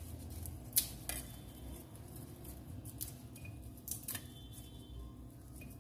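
Faint clicks and scrapes of a small kitchen knife against a plate while charred, fire-roasted garlic cloves are peeled by hand, with a sharper click a little under a second in.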